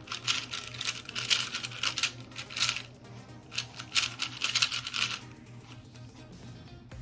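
Stickered, non-magnetic plastic 4x4 speed cube being turned fast during a solve: quick runs of clicking and clacking layer turns, thinning out over the last two seconds.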